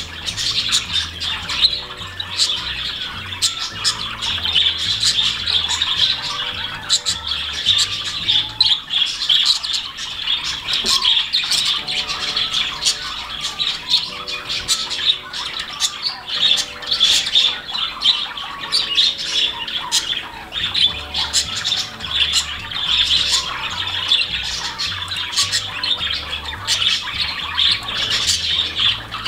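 Caged budgerigars chattering and squawking in a dense, continuous stream of short calls and chirps. Faint background music with low bass notes runs underneath, most audible in the first and last thirds.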